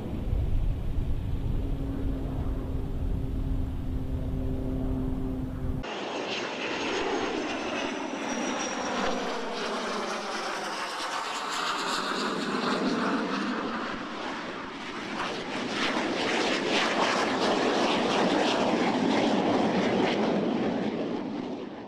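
Jet noise from the Northrop Grumman X-47B's turbofan engine. At first there is a low rumble with a steady hum; from about six seconds in, after a cut, the jet runs past low with a sweeping, shifting pitch, fading out near the end.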